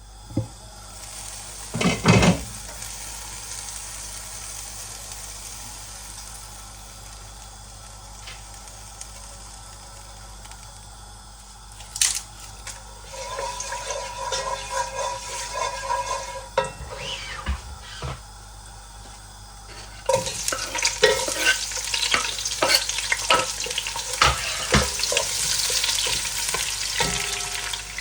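Rice and onions frying in oil in a large pot, a steady sizzle, with a spoon stirring and scraping against the pot and a couple of knocks. The stirring and sizzling grow louder and busier about twenty seconds in.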